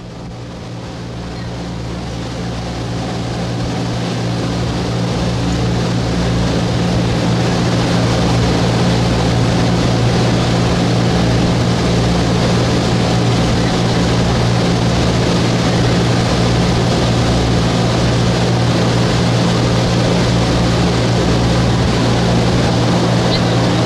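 A boat's engine running steadily, heard on board as a low drone with a steady hiss over it. It fades in over the first few seconds, then holds level.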